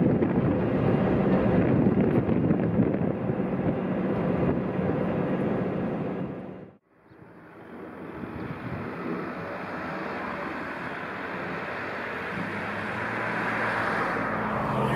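Wind buffeting a camera's built-in microphone outdoors, a steady rumbling noise. About seven seconds in, the sound drops out for a moment and a calmer outdoor ambience follows, with a faint low hum near the end.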